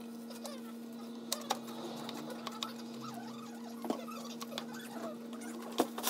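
Metal hand tools clinking and scraping as a socket wrench is worked on a scooter engine, with a few sharp taps scattered through and a steady hum underneath.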